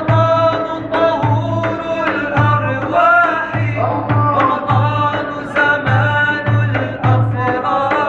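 Group of male voices chanting an Arabic devotional ibtihal in melismatic, sliding lines, over a hand-beaten frame drum keeping a steady low beat of about two strokes a second.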